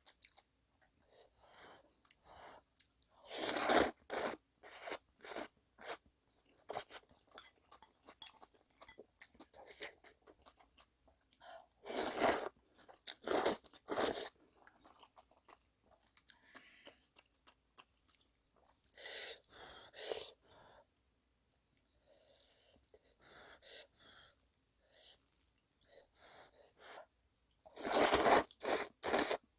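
Close-miked eating sounds: crunching and chewing of fresh cabbage kimchi (geotjeori) and noodle soup, in short irregular bites. Several louder clusters of bursts come about a quarter of the way in, near the middle, and near the end.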